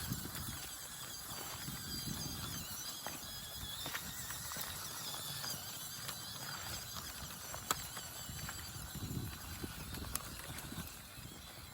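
Redcat Ascent-18 1/18-scale RC rock crawler's brushed electric motor and gears whining, the high pitch wavering up and down with the throttle, with scattered sharp clicks and knocks.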